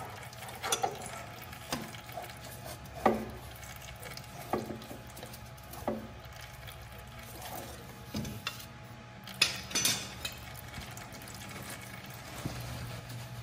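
Large slip-joint pliers clinking and scraping on a hydraulic oil filter canister as they are clamped on and worked to turn it: about eight short, sharp metallic knocks at uneven intervals, over a steady low hum.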